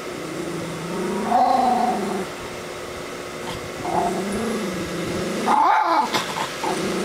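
Schnoodle growling in long, low, drawn-out growls, a sign of a dog alarmed and on guard, with a shorter, louder, higher sound about five and a half seconds in.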